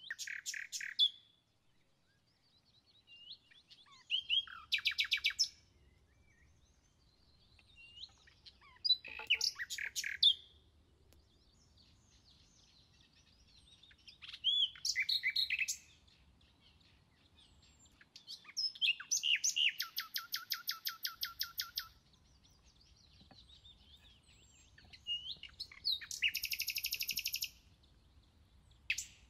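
A small songbird singing short, high phrases every few seconds, each a second or two long and often a rapid trill of repeated notes.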